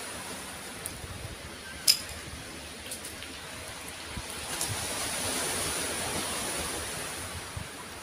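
Steady wash of surf on a pebble beach, swelling about halfway through. A few sharp clicks sound over it, the loudest about two seconds in.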